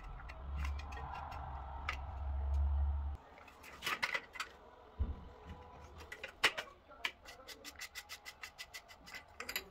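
A low rumble for about three seconds, then a series of small sharp clicks and taps, quickening to about four or five clicks a second near the end, as hard parts are handled and worked.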